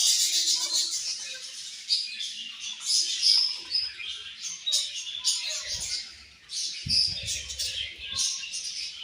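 A colony of budgerigars chirping and chattering, many quick overlapping calls at once. A low rumble comes in near the end.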